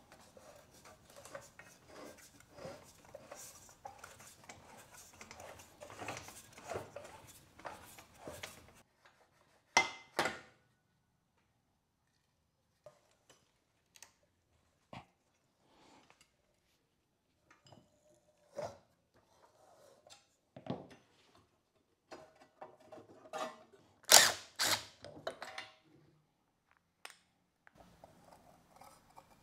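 Hands handling the parts of an old mower's engine and frame: scattered metal clicks, clinks and rustle as parts are gripped, loosened and moved. A burst of louder, sharper clinks comes about five seconds before the end.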